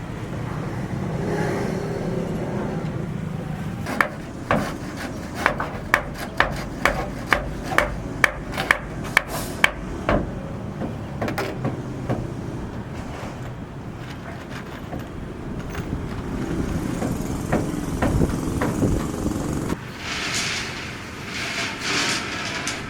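Construction-site hammering: a run of sharp hammer blows, about two a second for around six seconds, then a few scattered knocks, over a steady low rumble.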